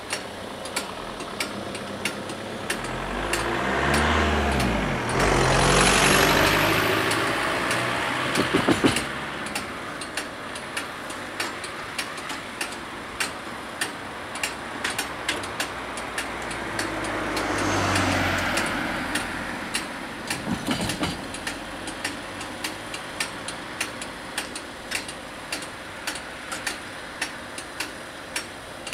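Two road vehicles cross a railway level crossing one after the other, each rising and fading as it passes, with a brief rapid clatter as the tyres go over the rails. A regular clicking goes on underneath.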